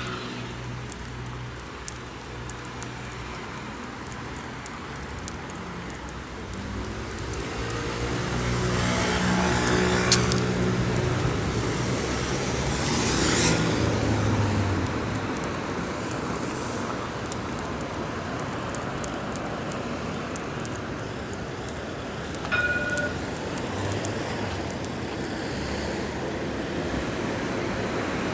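Street traffic: a steady hum of cars, with one vehicle's engine growing louder and passing close by around the middle, and scattered small clicks.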